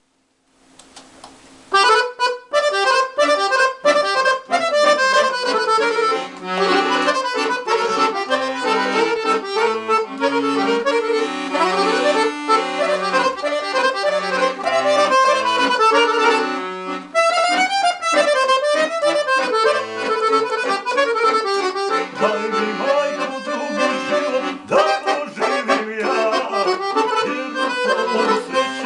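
Balkan folk band playing an instrumental intro led by accordion, a quick run of melody notes over a stepping bass line. A faint held low note comes first, and the full band comes in loudly about two seconds in.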